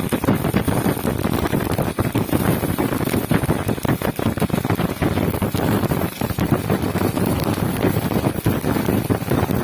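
Stick (MMA) welding arc crackling steadily as a 3.2 mm electrode burns, powered by a Daiden Zero inverter welder.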